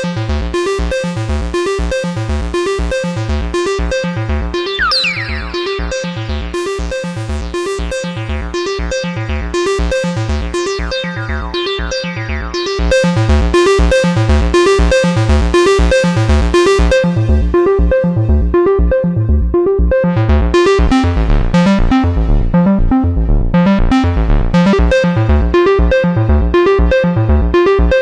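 Moog Subsequent 25 analog synthesizer playing a fast, repeating bass-heavy note sequence. Sweeping high tones come in about five seconds in, and the sequence gets louder about halfway through.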